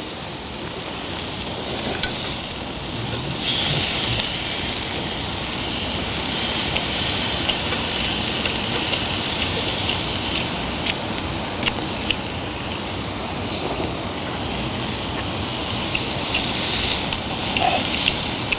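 Thin slices of marbled beef sirloin sizzling as they cook on a hot pan: a steady hiss with scattered small pops and crackles.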